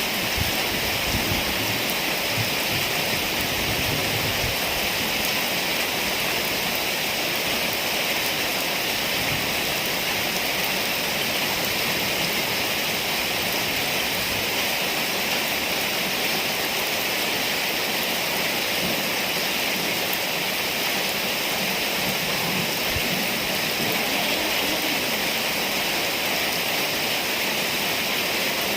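Heavy rain falling steadily in a storm, a constant hiss.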